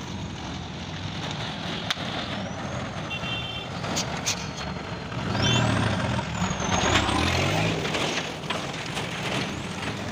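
Road traffic with a Tata goods truck's engine running as it pulls close by, loudest about halfway through. Motorbikes and e-rickshaws are in the mix, with a few short high beeps.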